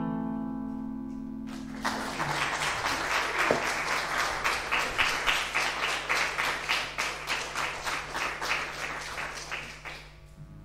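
The final acoustic guitar chord rings out, and audience applause begins about a second and a half in and fades out toward the end.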